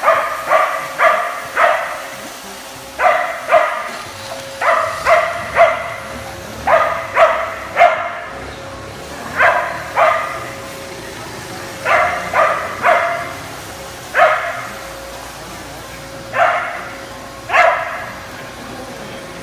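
A dog barking over and over in short runs of two to four barks, with a steady hum underneath.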